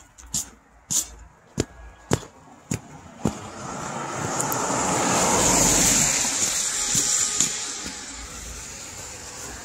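Footsteps at walking pace on a snowy sidewalk, about two steps a second, then a car passing on the street: a rush of tyre and engine noise that swells to a peak about halfway through and fades away.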